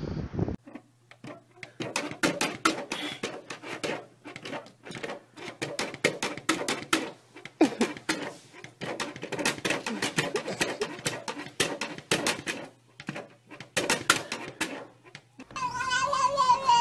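A plastic cat flap clattering with many quick, irregular knocks, with short animal cries between them. Near the end a cat gives one long, steady yowl.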